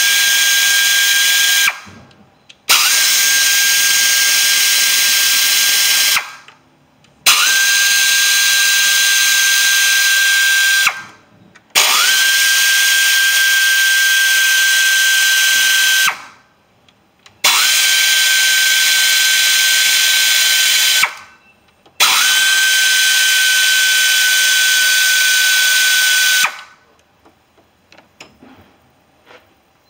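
Air ratchet spinning out the six bolts that hold the upper intake plenum to the lower intake on a 2007 Lincoln MKZ 3.5 V6. It runs in six spells of about four seconds each, the first already going at the start and ending about two seconds in. Each spell is a steady high whine over an airy hiss, with a quick rise in pitch as the tool spins up.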